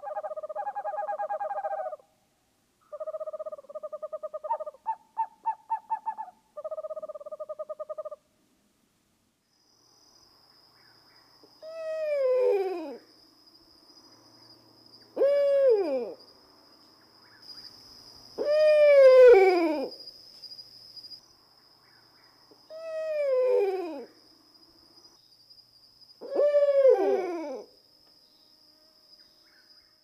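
Owl calls: in the first eight seconds, bursts of rapid pulsing trills about two seconds long; then, after a pause, five drawn-out calls that slide down in pitch, a few seconds apart.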